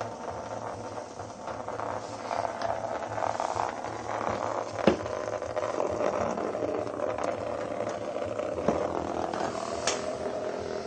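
Small vibrating bug toys (cheap Hexbug Nano knock-offs) buzzing and rattling as they skitter across the floor of a plastic laundry basket, with a few sharp knocks, the loudest about halfway through.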